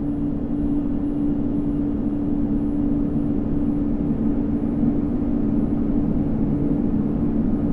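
Drone and noise music: one steady held tone over a dense, low rumbling noise bed, unchanging throughout.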